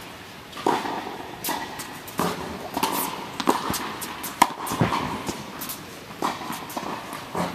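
Tennis balls being struck by rackets and bouncing on a hard indoor court: a series of sharp knocks, roughly one a second.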